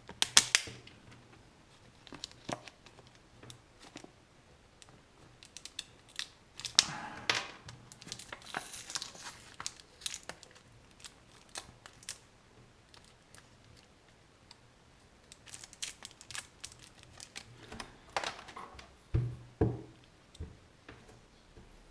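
Plastic packaging crinkling and tearing as a small tool is unwrapped and handled, with many scattered clicks and taps. The longest bursts of rustling come about a third of the way in and again near the end.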